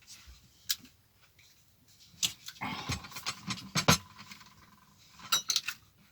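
Kitchen handling sounds: scattered knocks and clinks of crockery and cutlery, with a short scraping, rustling stretch in the middle and a quick cluster of clicks near the end.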